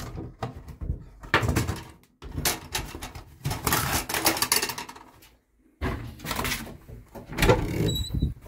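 A door being opened and handled, with irregular clattering, knocks and rustling in several short bursts.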